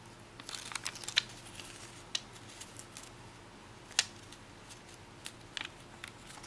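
Strip of paper being rolled tightly between the fingers into a thin stem: a burst of crinkling rustles about half a second in, then scattered small crackles and ticks, with one sharp tick about four seconds in.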